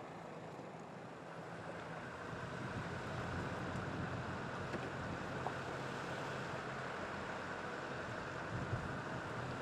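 Steady outdoor street ambience: a low hum of idling vehicle engines under an even hiss, swelling slightly a couple of seconds in.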